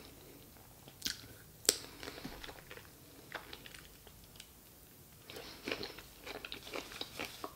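A person biting into and chewing a fresh sweet cherry: two sharp bites about a second in, then faint chewing and wet mouth smacks near the end.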